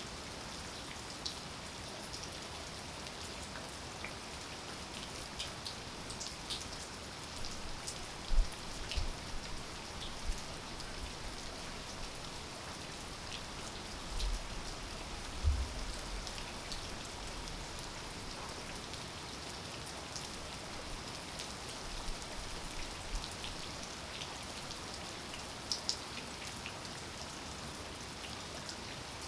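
Steady rain, with many individual drops ticking close by. A few low thumps stand out about eight and fifteen seconds in.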